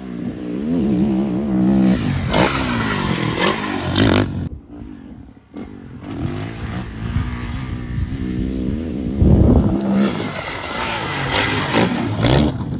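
Dirt bike engine revving hard, its pitch rising and falling through the gears as the rider climbs the track, dropping away for about a second midway, then revving up again and opening up for the jump near the end.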